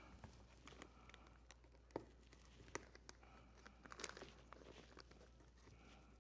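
Near silence with faint, scattered small clicks and light rattles of small rivet-gun parts being handled, the clearest about two, three and four seconds in.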